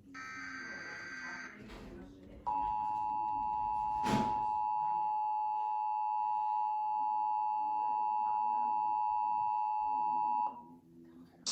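Emergency Alert System signal for a Child Abduction Emergency (Amber Alert), received on weather radios and a TV: the tail of a raspy warbling SAME data burst, a short pause, then a steady alert tone of a few close pitches that holds for about eight seconds and cuts off. A single sharp click comes a little after the tone starts.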